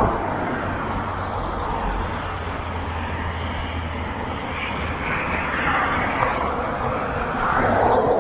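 Steady vehicle noise with a low rumble, swelling about five seconds in and again near the end.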